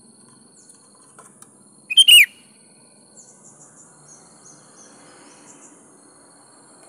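Sooty-headed bulbul (kutilang) giving one short, loud call about two seconds in, with a quick wavering pitch. Behind it are a steady faint high insect buzz and a few soft chirps.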